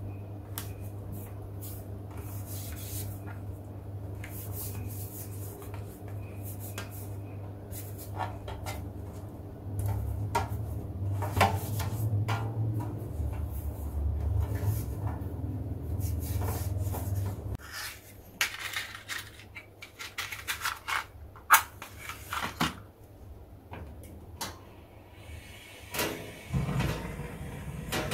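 A metal baking pan being handled and greased by hand: scattered clicks, knocks and clatters of the pan and kitchen items, over a steady low hum that stops about two-thirds through. Near the end, a hiss as a gas oven burner is lit with a match.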